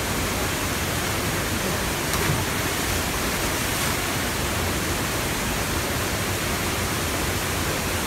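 Waterfall cascades rushing steadily into a river pool, an even, unbroken noise of falling water.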